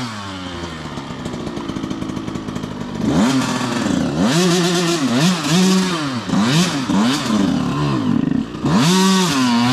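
KTM 85 two-stroke dirt bike engine climbing a rocky trail. It runs at a quieter, steady note for about three seconds, then is revved up and down repeatedly.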